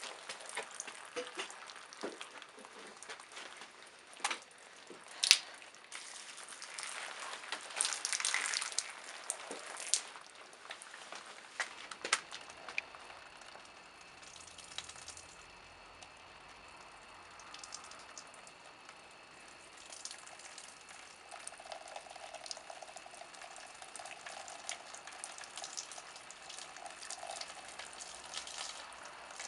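Wine poured over soaked toilet tissue, splashing and crackling with a few sharp clicks, then a quieter steady trickle as wine seeps through a plaster-bandage form and drips.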